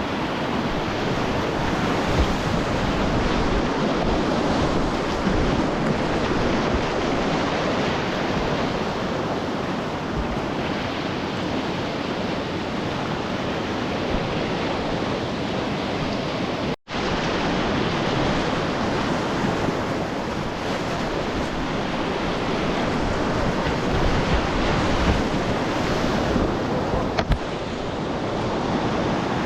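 Rushing whitewater of a class III river rapid heard from a kayak, a steady loud wash of water with wind buffeting the microphone. The sound drops out for an instant about seventeen seconds in.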